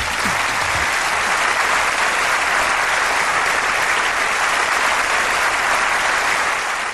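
A large audience applauding steadily, with the last notes of the song fading out in the first second.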